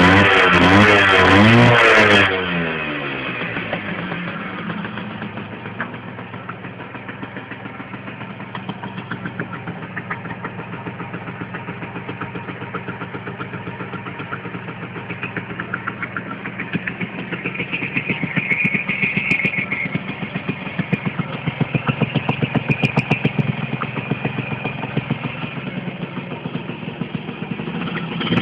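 After about two seconds of music, a DKW 159's two-stroke engine idles with a fast, even putter. It is revved up a little in the second half, then settles back to idle.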